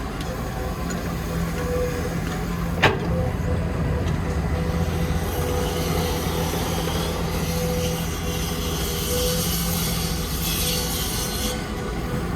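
Heavy construction machine's diesel engine running steadily, with a single sharp clank about three seconds in and a high hiss through the middle and later part that stops suddenly near the end.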